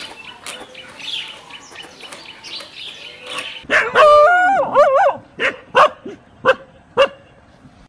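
A dog howls with a wavering pitch for about a second and a half, then barks four times.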